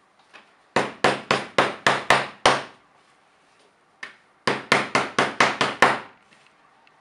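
Two quick runs of sharp wooden knocks, about four a second and six or seven in each run, with a single knock between them.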